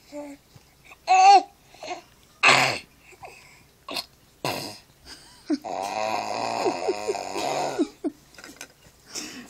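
Six-month-old baby grunting and squealing: short vocal bursts about one, two and a half and four and a half seconds in, then one long rough, throaty grunt of about two and a half seconds.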